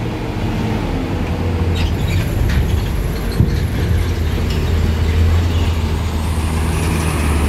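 Diesel coach bus engines running in a low, steady drone as the buses drive up the steel ramp into a ferry's vehicle deck, with a single sharp clank about three and a half seconds in.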